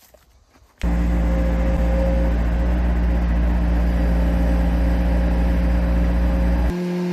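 Portable sawmill's engine running steadily at a constant speed, cutting in abruptly about a second in and changing tone suddenly near the end.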